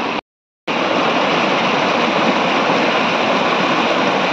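Mountain river rushing over boulders in whitewater rapids: a loud, steady rush of water. It cuts out to silence for about half a second near the start, then resumes unchanged.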